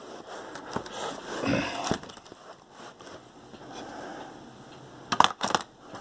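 Handling noise of a laptop being turned over and repositioned: low rustling and scraping of its case, with a quick cluster of sharp clicks and knocks about five seconds in as the battery is brought to the underside.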